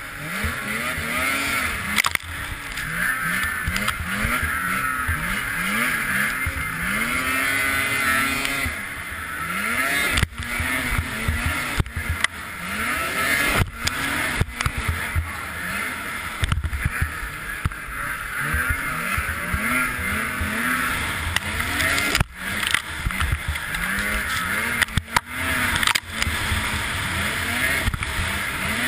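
Race snowmobile engine revving up and dropping back over and over as the throttle is worked through the bumps, with wind rushing past a helmet-mounted camera. Several sharp knocks come through as the sled jolts over the bumps.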